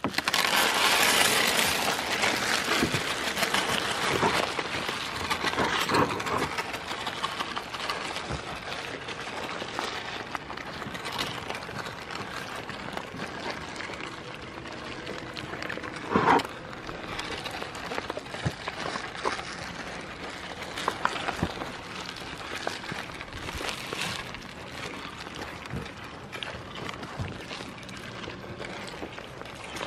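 Goats eating pumpkin seeds off a board right at the microphone: crunching and nibbling, with many small clicks of lips and muzzles on the wood. One short louder sound about 16 seconds in.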